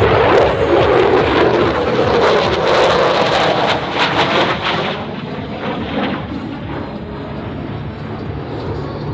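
F-22 Raptor jet fighter's twin turbofan engines roaring as it passes the crowd, loud and crackling for about five seconds, then fading away.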